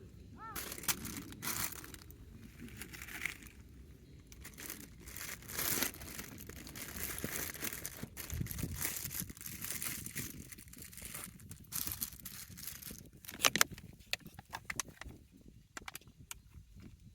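Irregular crinkling and crunching handling sounds, with scattered sharp clicks and knocks and a louder cluster of knocks about three-quarters of the way through.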